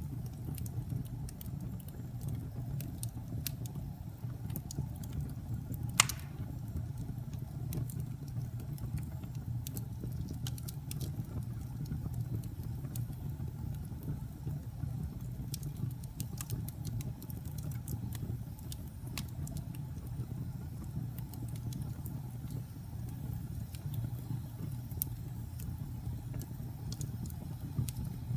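Wood fire burning in a fireplace: a steady low rumble of flames with scattered crackles and one sharp pop about six seconds in.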